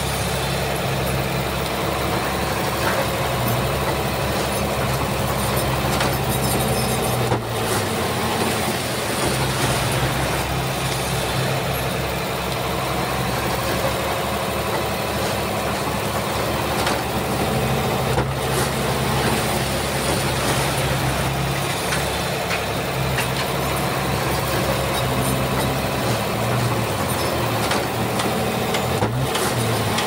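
Komatsu bulldozer's diesel engine running steadily under load, its note rising and falling every few seconds as the machine works.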